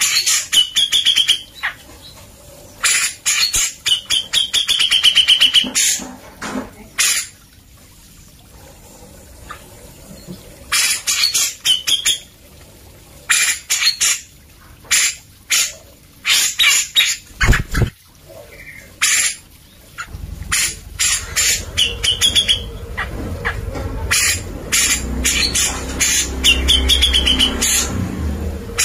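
Grey-cheeked bulbul (cucak jenggot) singing in loud bursts of sharp chattering notes and warbling trills, with short pauses between the phrases. A low rumble runs under the last few phrases, and there is a single dull thump just before it starts.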